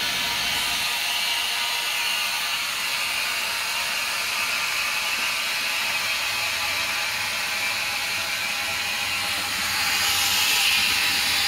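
Air compressor running steadily, feeding pressure into a 50-gallon drum to force the water in it up and out through a hose. It starts abruptly just before and gets a little louder near the end.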